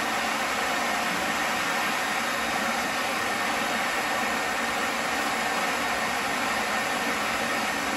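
Steady rushing hiss of a gas torch burning, heating the seized, rusted bolts and pivot of the motorcycle's front fork to break them loose.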